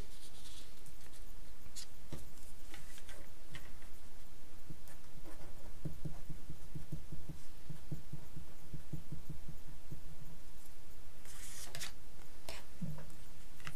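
Pen scratching on paper in short strokes as a word is handwritten, over a steady low background hum.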